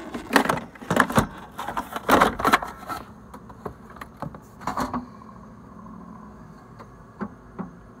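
Plastic ice bucket of a refrigerator's ice maker clattering and knocking as it is handled and lifted out, with a full load of ice inside it, in a quick run of sharp knocks over the first few seconds and a few more later. The last seconds are quieter, with a low steady hum and one more click.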